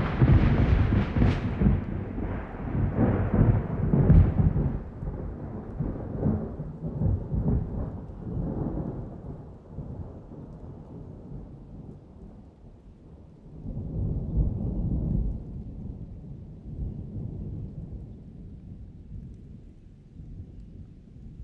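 Thunder rumbling: a sudden loud start that rolls on in irregular swells, fading slowly, with a second swell about fourteen seconds in.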